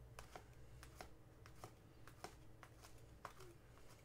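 Faint, irregular clicks of hockey trading cards being flicked one by one off a stack in the hand, about three a second.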